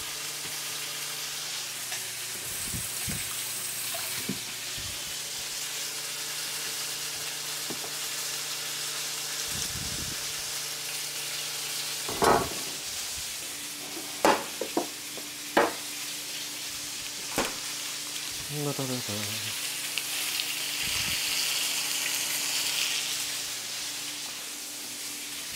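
Venison steaks sizzling steadily in hot oil in a frying pan. A few sharp knocks come about halfway through, and the sizzle grows louder near the end as a pat of butter goes into the pan.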